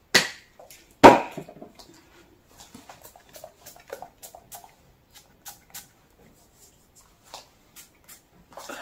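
A fragrance spray bottle sprayed in two short hisses about a second apart, followed by faint clicks and rustles of the bottles being handled.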